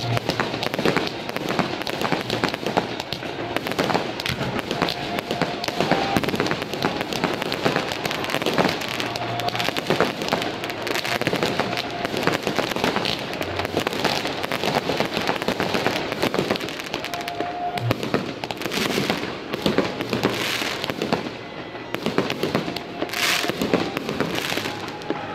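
Fireworks display heard through an HTC One phone's microphone: a dense, continuous stream of crackling and bangs from aerial shells bursting, with a few hissing streaks in the last several seconds.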